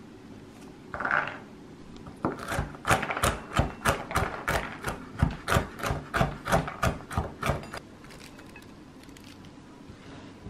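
Knife chopping pecans on a wooden cutting board, a run of sharp chops at about three a second for some five seconds. A short scrape comes about a second in, before the chopping starts.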